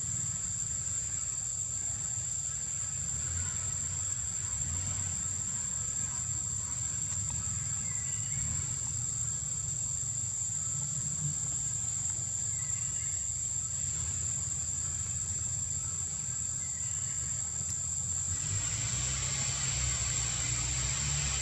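A steady high-pitched insect drone with a low rumble underneath; the insect sound grows fuller and hissier about eighteen seconds in.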